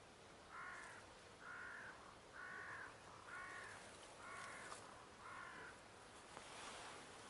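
Crow cawing six times, about one caw a second, fairly faint.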